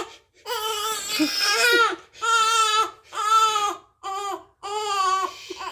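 Newborn baby crying: about five wails in a row, the first one long and the rest shorter, with quick breaths between them.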